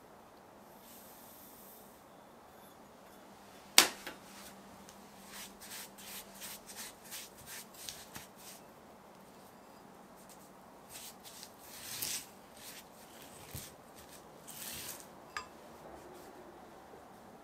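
Kitchen utensil and dish handling sounds. There is one sharp knock about four seconds in, the loudest sound, then a string of light clicks, a couple of short rustling swishes and a small ringing clink near the end. A faint low hum sets in with the knock.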